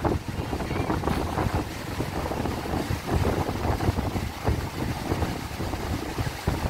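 Wind buffeting the microphone in uneven gusts, over the wash of surf breaking on the beach.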